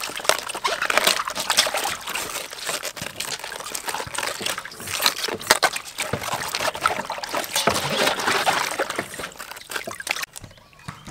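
Water sloshing, splashing and trickling in a stainless steel basin as hands rub and turn heads of cabbage, with water running off the heads as they are lifted out. The splashing dies down about ten seconds in.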